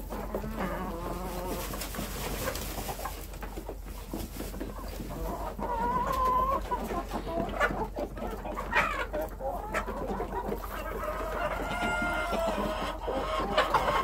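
A flock of domestic hens clucking as they feed, with a few longer drawn-out calls among the clucks.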